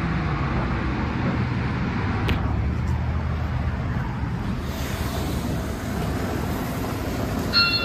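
Steady low rumble and hiss of an automatic car wash bay running before its dryers start. A short, high electronic beep sounds near the end.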